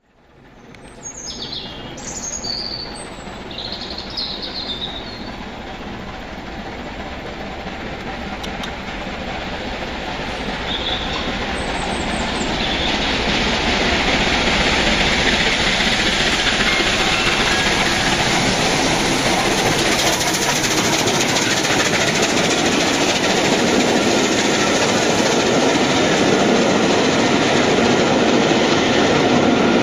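Rebuilt West Country class steam locomotive hauling a passenger train past, the rail noise building over several seconds and then running steady and loud. Birds chirp in the first few seconds before the train arrives.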